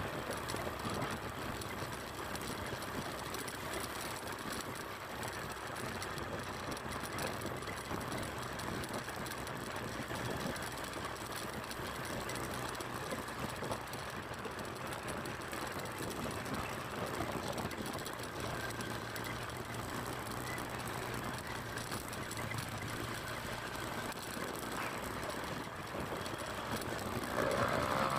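Small motorcycle engine running steadily while riding, mixed with road and wind noise. Near the end a vehicle close by gets louder.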